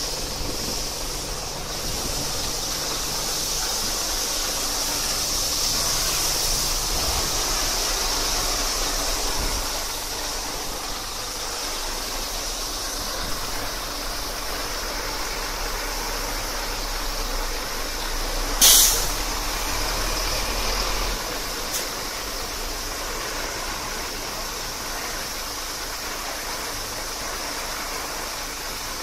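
Water jets of an automatic truck wheel-wash bay spraying the tyres and underside of a HOWO dump truck: a steady hiss of spray over the truck's diesel engine running. One short, loud hiss about two-thirds of the way in.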